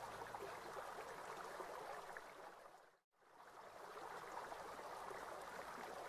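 Running water trickling and splashing. It fades out to silence about three seconds in, then fades straight back in.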